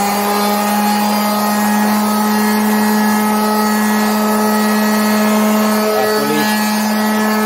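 Skil 280-watt variable-speed orbital finishing sander running at a steady speed as it sands a board, a loud, even motor hum with a whine above it.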